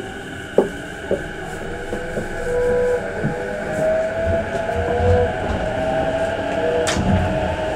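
Interior of a JR E233 series 5000 electric train car starting off and gaining speed: a steady motor hum with tones that grow louder and edge upward, over a low rumble. A few light knocks come early, and a sharp clack about seven seconds in.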